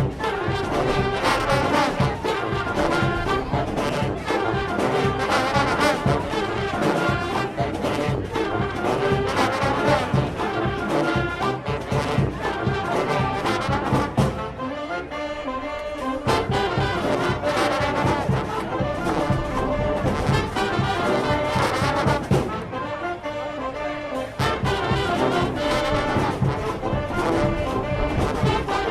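Brass band music: trombones and trumpets over a steady percussion beat. The band thins out briefly twice.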